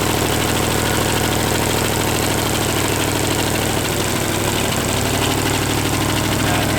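Chevrolet 283 small-block V8 running on only four cylinders, one cylinder head fitted and the other bank blocked off, idling steadily. The crew suspects a vacuum leak around the makeshift cover.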